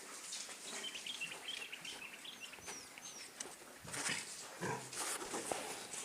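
Fattening pigs feeding on fresh greens: crackling, crunching chewing throughout, with a few pig grunts about four to five seconds in.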